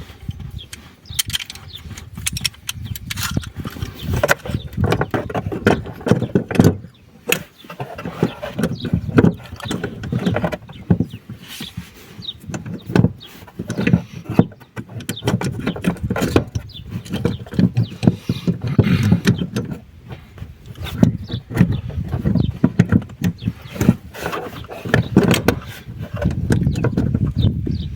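Hands and tools working on a car's fuel pump and its fittings: an irregular run of knocks, clicks and scraping of metal and plastic parts.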